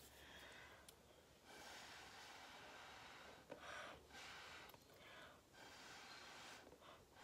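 Faint puffs of breath blown through a straw onto wet acrylic paint, about six blows of different lengths, some brief and some lasting up to two seconds.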